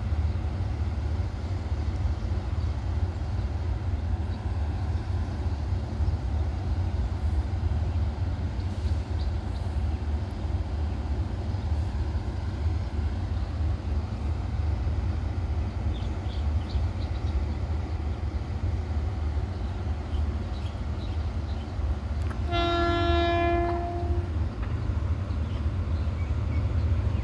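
A train horn sounds once, a single steady note held for about two seconds about 22 seconds in, over a steady low rumble from diesel trains at the station.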